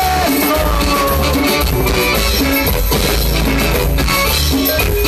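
Live Latin tropical dance band playing an instrumental passage, with drum kit, bass, guitar and percussion keeping a steady danceable beat and a melody line sliding in pitch about a second in.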